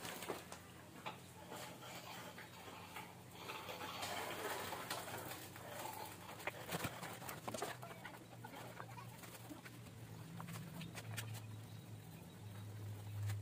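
Paint roller rolled over a concrete wall as a second coat of paint goes on, with scattered clicks and a bird calling in the background.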